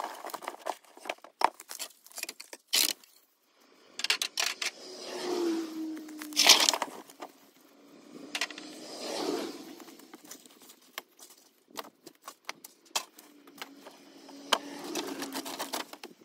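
Scattered knocks, clatters and scrapes of old wooden boards and debris being handled and moved, with a few louder rustling scrapes.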